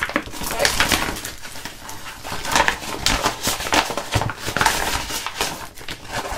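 Plastic packaging crinkling and rustling in irregular crackles while a hanging fabric storage organiser is handled and pulled about.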